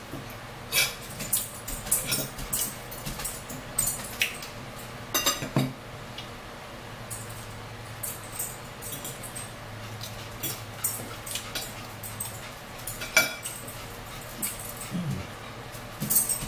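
Forks clinking and scraping on plates, with small eating and mouth sounds, in a run of irregular sharp clicks.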